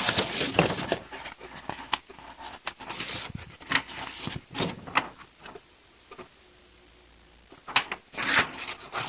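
Paper rustling and handling noise as the pages of a plastic model kit's instruction booklet are turned, in two bursts with a quiet pause between.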